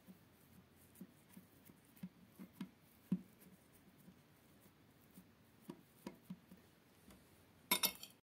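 Fingertips pressing and dabbing a mashed potato layer flat on a plate, making faint soft taps, a few a second. A short burst of sharper clicks comes near the end.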